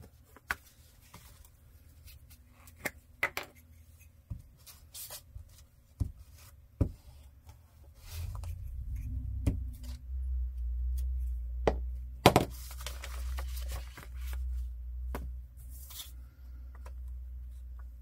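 Paper handling at a craft table, heard as scattered tearing sounds, clicks and taps. From about halfway through, a Harley-Davidson motorcycle engine starts a steady low rumble that runs on beneath, described as pretty darn loud. A sharp click a few seconds after the rumble starts is the loudest single sound.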